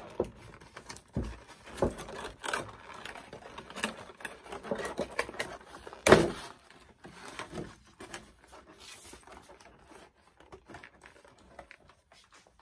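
Cardboard doll box and its clear plastic packaging being handled, with irregular crinkling, rustling and clicking and a loud knock about six seconds in. The handling noises thin out over the last few seconds.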